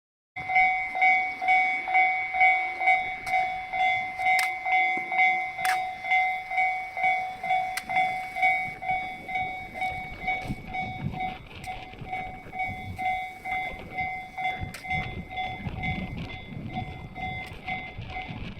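Japanese railway level-crossing warning bell ringing, an electronic two-tone ding repeating about twice a second, starting suddenly just after the start. A low rumble joins from about ten seconds in.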